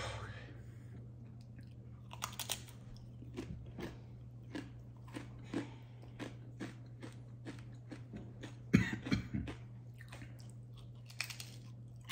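Crisp crunching and chewing of a Paqui One Chip Challenge tortilla chip, in irregular bites with a louder cluster of crunches about nine seconds in. A low steady hum runs underneath.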